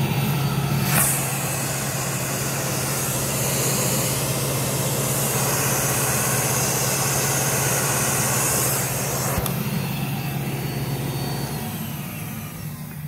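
Carpet extractor's vacuum motor running steadily with a strong hum and rushing air through the wand. A click comes about nine seconds in, after which the motor winds down and fades near the end.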